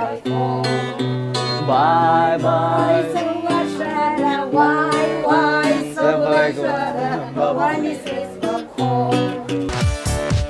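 Women singing a song together to acoustic guitar accompaniment. Just before the end it cuts to electronic music with a steady beat.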